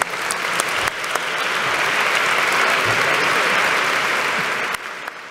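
Large audience applauding, swelling over the first couple of seconds, holding steady, then dying away near the end.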